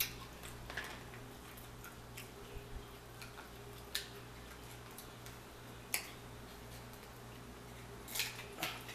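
Scattered sharp clicks and cracks of king crab leg shells being broken apart by hand and snipped with scissors, a few seconds apart with a quick cluster near the end, over a low steady hum.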